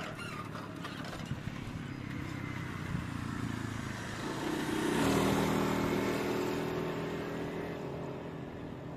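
Two-stroke motorcycle engine being ridden to warm it up, running with an aftermarket exhaust. It gets louder to a peak about five seconds in, then eases off.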